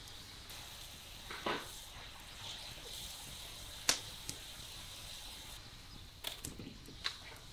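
Wood fire burning in a clay oven, crackling: a steady soft hiss with a few sharp pops. The loudest pop comes about four seconds in, and a cluster of smaller pops follows near the end.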